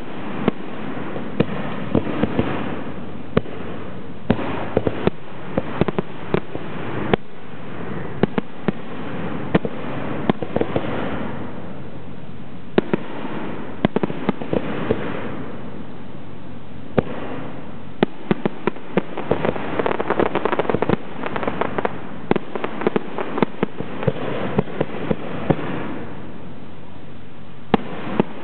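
Zambelli aerial fireworks display: shells bursting in a steady string of sharp bangs, with quicker clusters of reports past the middle, and a noisy swell between the bursts.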